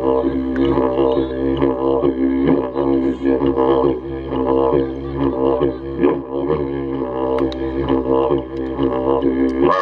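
Didgeridoo played live: a continuous low drone whose overtones sweep up and down in a quick, pulsing rhythm. It cuts off abruptly near the end.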